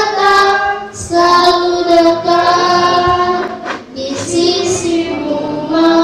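Children singing a slow song, holding long notes, with short breaks about a second in and near four seconds in.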